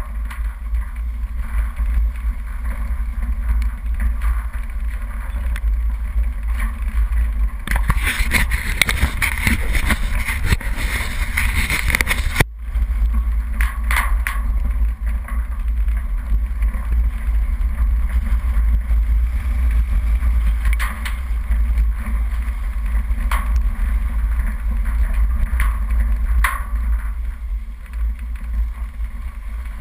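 Off-road 4x4 driving slowly down a rough dirt track: a steady low engine and drivetrain rumble, with a louder rushing stretch from about eight to twelve seconds in that cuts off sharply, and a few sharp knocks later on.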